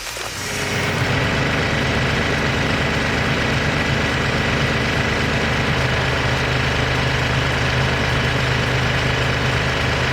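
A heavy engine running steadily at a constant speed, its low note shifting slightly about halfway through.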